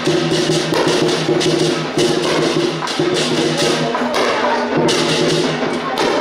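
Lion dance percussion band playing: drum and gong under cymbals that clash in a steady beat about once a second.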